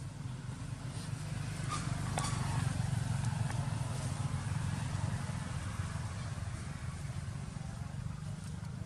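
Steady low engine rumble of a motor vehicle running nearby, swelling a couple of seconds in and easing off again, with a few faint clicks.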